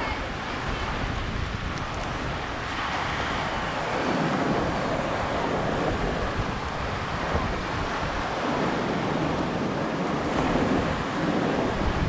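Pacific surf breaking and washing up over a rocky sand beach, with wind rumbling on the microphone. A wave's wash swells about three seconds in and fizzes on, and another surges near the end.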